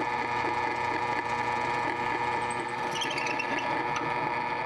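Drill press running with a steady motor whine as its bit bores through a mesquite knife-handle scale.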